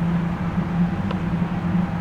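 A steady low engine drone under an even rushing noise, with a faint click about a second in.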